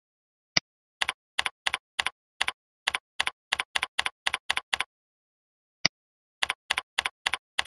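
Computer keyboard keystrokes in two quick runs, with a single mouse click about half a second in and another just before the second run.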